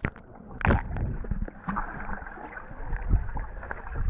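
River water heard from under the surface: muffled bubbling and gurgling with dull thumps, the loudest about three-quarters of a second in.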